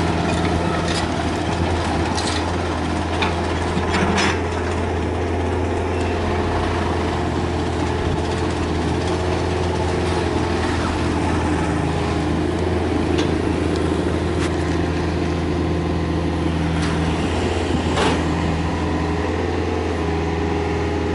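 Komatsu PC45MR mini excavator's diesel engine running steadily as it digs and swings soil, with occasional short clanks and knocks from the bucket and arm working in the dirt.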